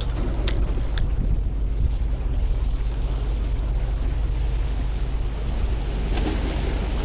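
Steady wind buffeting the microphone over waves washing against the rocks of a breakwater, with two light clicks about half a second and a second in.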